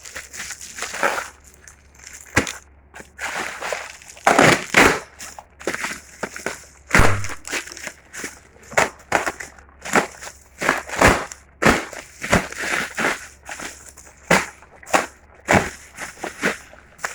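Packaging being handled and crumpled: irregular crackling and crinkling, several sharp crackles a second.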